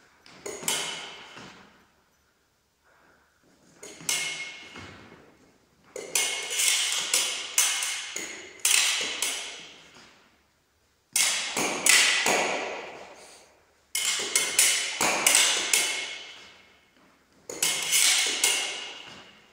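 Steel foil blades clicking, ringing and scraping against each other in quick flurries as parries search for the blade and ripostes follow. There are about six flurries, each a second or two long, with short pauses between them.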